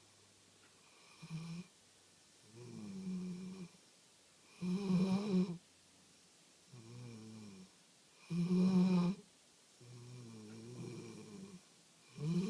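A puppy snoring in its sleep. Three louder snores come about every three and a half seconds, with a softer snore between each.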